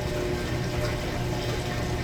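Maytag Bravos top-load washer running, water rushing and splashing in the tub over a steady low motor hum.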